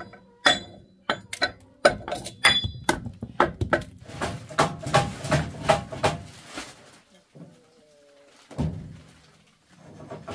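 Irregular sharp knocks and metal clacks from hand-worked machinery, coming thick and fast for a few seconds before dying away. A single thump follows near the end.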